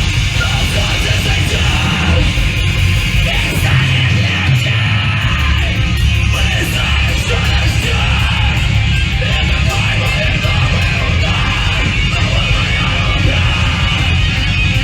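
Live hardcore punk band playing loudly, with yelled vocals over the full band.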